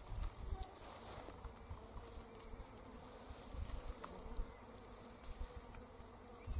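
An insect buzzing steadily in the summer air, with a low rumble of wind on the microphone.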